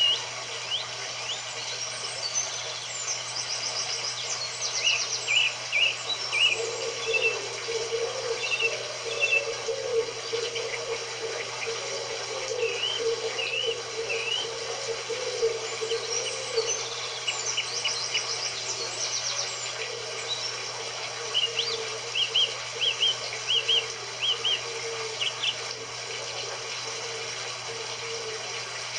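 Several birds chirping and trilling in short repeated phrases, a nature-sound recording, with a wavering lower tone through the middle and a steady low hum underneath.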